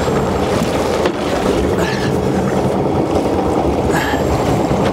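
A steady low rumble from a small boat at sea: the outboard motor running slowly, with water washing against the hull.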